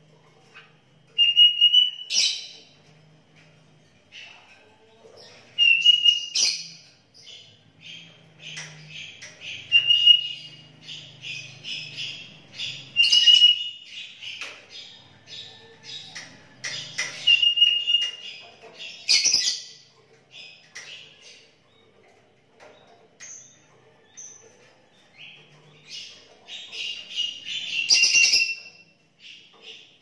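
Sooty-headed bulbul singing: loud phrases repeated about every four seconds, each a short clear whistle followed by a quick burst of bubbly chirps, with softer chattering notes in between.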